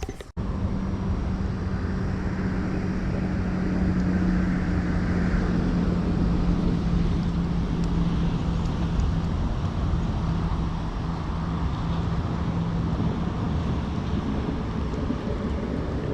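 A steady motor drone: a constant low hum over a rushing noise, starting abruptly just after the beginning and running on evenly.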